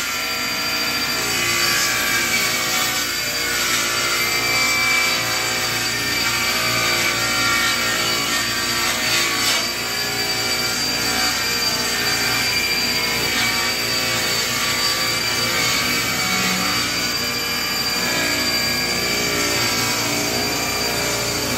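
Table saw running steadily with a constant high whine while ripping a long board along the fence.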